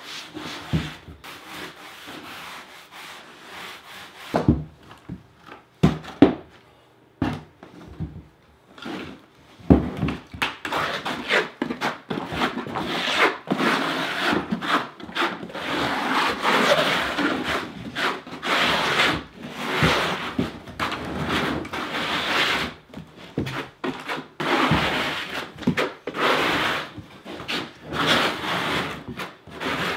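A trowel scraping thin-set mortar across a plywood subfloor in quick repeated strokes, pressing it into the wood to burn it in. A few sharp knocks come in the first several seconds before the steady scraping starts about ten seconds in.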